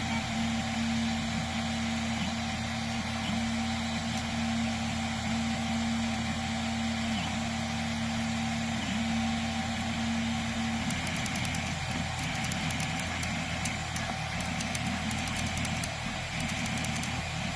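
Tevo Tarantula 3D printer running a print: stepper motors whining with a steady low tone, and cooling fans humming. The tone dips briefly a few times and stops about eleven seconds in, after which a light, rapid clicking follows.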